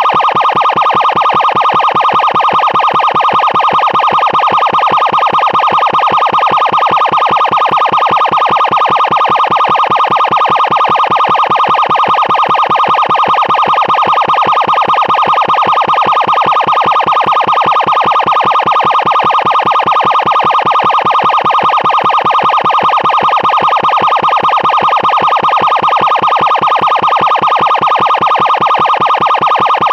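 Emergency siren sounding loud and continuously: a steady high tone that pulses rapidly and evenly, with no rise or fall in pitch.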